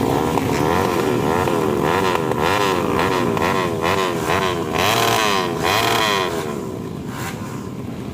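Motorcycle engine revved up and down over and over, about twice a second, then dying away over the last couple of seconds.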